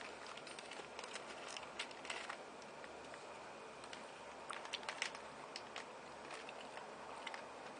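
Faint, scattered small clicks and light rustles over a low steady hiss, with no speech.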